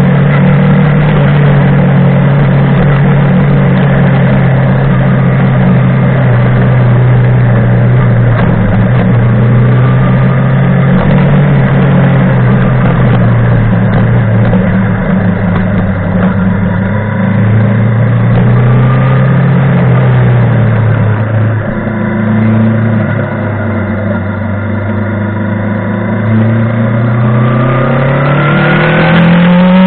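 Montana XR5 motorcycle engine and exhaust under way, holding a steady pitch, easing off and quieter about two-thirds through, then revving up sharply near the end and dropping back.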